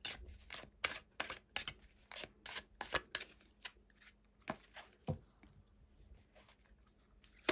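A tarot deck being shuffled by hand, the cards snapping and clicking against each other several times a second, thinning out after about three seconds.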